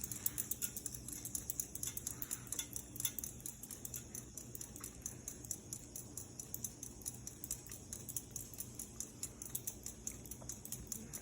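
Hunter Balboa ceiling fan running on its low speed: a faint motor hum with a fast, steady ticking throughout.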